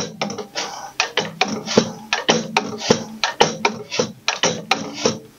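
Yanmar diesel injector on a hand-lever nozzle pop tester, spraying fuel in quick, sharp hissing pops about four times a second as the tester lever is pumped. This is the injector's spray and chatter being checked against its opening pressure.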